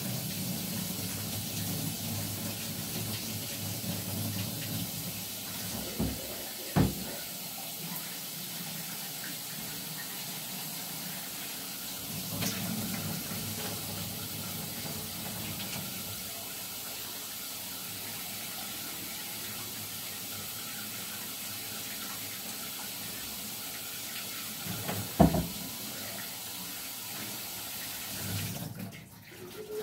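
Tap water running in a sink as a glass bong is rinsed of salt and alcohol. Two sharp knocks stand out: one about seven seconds in and a louder one near the end.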